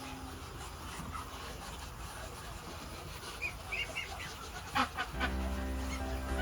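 Farmyard poultry making a few short, high calls about halfway through over a low background. Background music comes in near the end.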